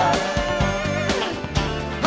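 Background song with guitar.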